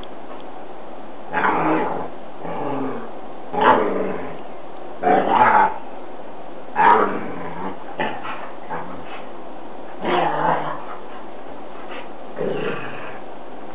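Two dogs play fighting, letting out short growls and barks every second or two.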